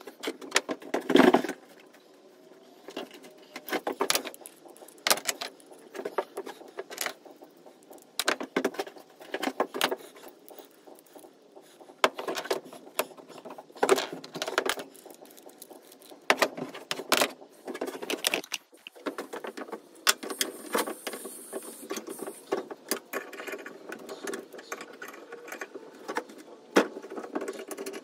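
Irregular metallic clinks and knocks of scrap brass-and-copper TXV parts and hand pliers being handled and worked on a wooden bench, with small rattles between.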